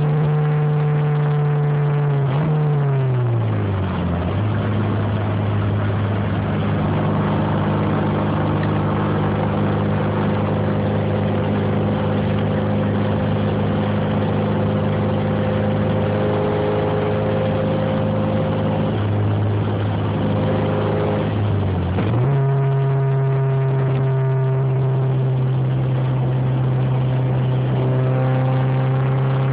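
Honda B16 four-cylinder engine running steadily at raised revs, dropping to a lower speed about three seconds in, holding there, then climbing back up about 22 seconds in. The engine has an exhaust leak at the front.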